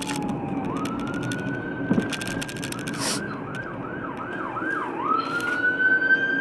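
Ambulance siren heard from inside a moving car: a long wail that switches about three seconds in to a fast yelp of about three to four cycles a second, then goes back to a long wail, over the car's steady road hum.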